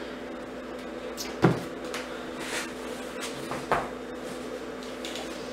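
Handling of a doll's cardboard presentation box and its black foam insert: a sharp knock about a second and a half in, a short scrape, and a smaller knock a couple of seconds later, over a steady low hum.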